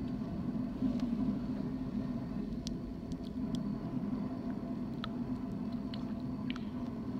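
Train rolling past on the tracks: a steady low rumble, with a few short high-pitched squeaks.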